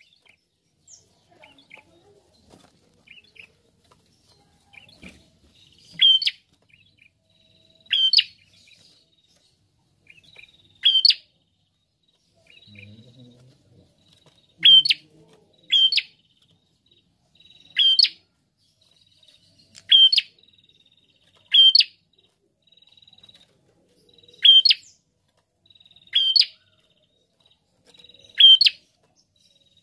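Caged ashy tailorbird (prenjak kepala merah) calling: short, sharp, high notes about every two seconds from about six seconds in, with only faint notes before that.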